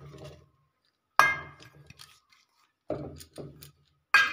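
Stainless-steel bowl and mixer-grinder jar knocking together as chillies and mint are tipped in and the bowl is set down: a sharp metallic clank that rings briefly about a second in, two duller knocks around three seconds, and another ringing clink at the very end.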